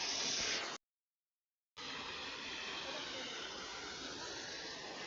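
Waterfall rushing: a steady hiss of falling water, cut off by about a second of dead silence a little under a second in, then resuming.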